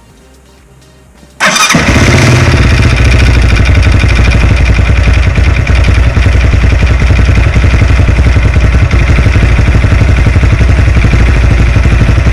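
Lifan JR200 motorcycle's single-cylinder four-stroke engine comes in suddenly about a second and a half in and then runs steadily. This is the freshly reassembled engine, still on its worn cylinder and piston, that had a rhythmic knock; it now runs quieter.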